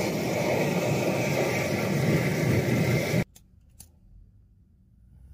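Portable gas canister camping stove burner running with a steady rushing noise, cutting off suddenly about three seconds in; then near quiet with a couple of light clicks.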